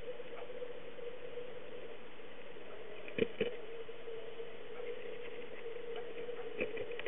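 Steady electronic hum from the camera, with two sharp handling clicks about three seconds in and another near the end as the camera is zoomed.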